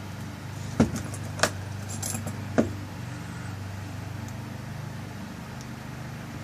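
Small metal lock parts clicking and clinking as the tailpiece is fitted and screwed onto a rekeyed lock cylinder: four sharp clicks in the first three seconds, over a steady low hum.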